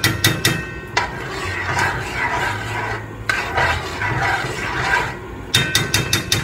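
Metal kitchen utensils clicking and scraping against dishes: a few sharp clicks, two stretches of scraping, then a quick run of ringing clicks near the end.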